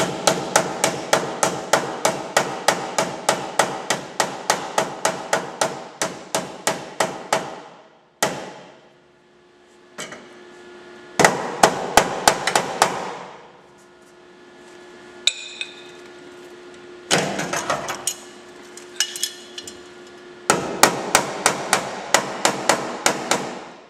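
Hammer tapping a steel car body panel in quick light blows, about four a second, in several bouts with short pauses, knocking the outer panel down so it sits tight against the panel behind it for plug welding.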